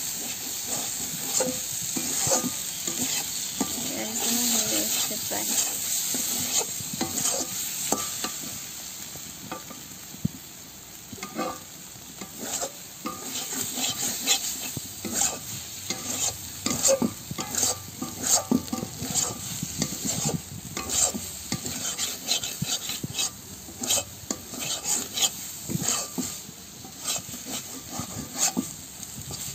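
Chopped goat liver and onions frying in oil in a kadai, sizzling steadily while a spatula stirs and scrapes them around the pan. The scraping strokes come thicker in the second half. The masala has begun to release its oil, a sign of the bhuna stage of the fry.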